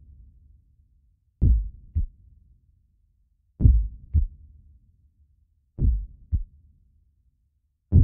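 Heartbeat sound effect: a low double thump, lub-dub, repeating about every two seconds, three full beats with a fourth beginning near the end.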